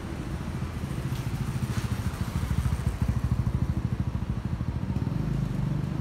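Low, fluttering jet rumble from a Boeing 737-800's CFM56-7B turbofans as the airliner climbs overhead after takeoff. It grows louder over the first few seconds.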